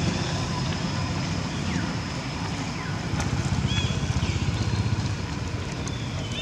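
Steady low outdoor rumble, with a few faint high-pitched squeaks that fall in pitch, the clearest a little after the middle.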